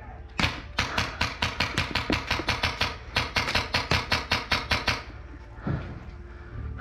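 Airsoft gun firing a rapid string of sharp shots, about six or seven a second, stopping abruptly about five seconds in.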